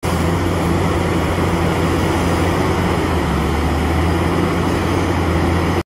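Caterpillar 6015B hydraulic mining excavator's diesel engine running steadily under load while it digs, a deep even hum with machinery noise over it; it cuts off suddenly at the end.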